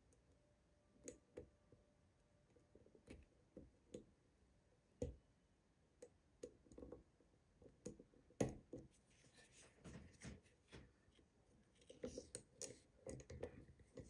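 Faint, irregular clicks and light scrapes of a lock pick working the pins of a Zone 5-pin euro cylinder under a tension wrench. The clicks come thicker in the last couple of seconds.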